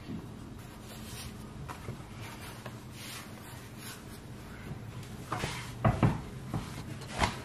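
Thin dough being handled on a granite countertop: faint rubbing and light ticks, then a few knocks and thumps against the counter around five to six seconds in, and one more near the end.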